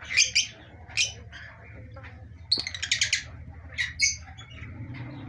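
Pet parrots calling with short, sharp, high-pitched chirps: single calls near the start and about a second in, a quick run of them about halfway through, and two more near the end.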